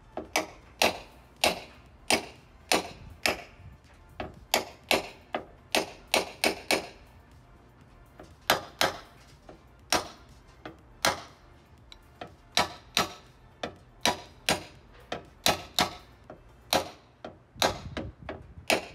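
Paintless dent repair tapping on a Tesla Model 3's front fender: a small hammer striking a knockdown tool against the panel. Sharp light taps come singly and in quick runs of two or three, about one to three a second, with short pauses between runs.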